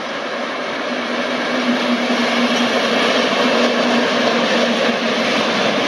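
Class 298 diesel locomotive passing with a short train of tank wagons, its engine running and its wheels rolling on the rails. The sound grows louder over the first couple of seconds as it approaches, with a steady hum through the middle.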